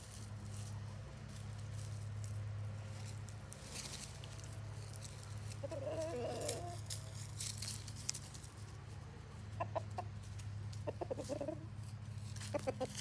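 Chickens clucking: a few short clucks about six seconds in and again in several quick bursts near the end. A steady low hum and scattered light clicks run underneath.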